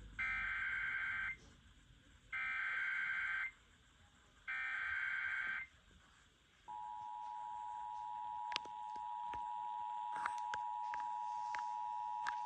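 Emergency Alert System header: three bursts of warbling digital data tones, each about a second long with short gaps between. About seven seconds in, the steady two-tone attention signal starts, announcing the spoken severe thunderstorm warning that follows.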